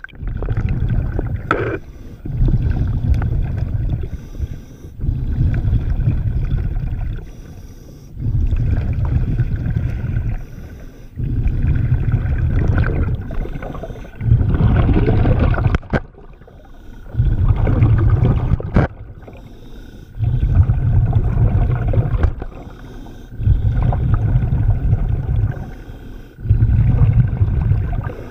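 A scuba diver breathing through a regulator underwater: a low bubbling rumble of breath and exhaled bubbles comes in an even rhythm, about every three seconds. A few sharp clicks sound in between.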